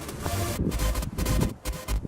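Electronic dance background music with a heavy beat.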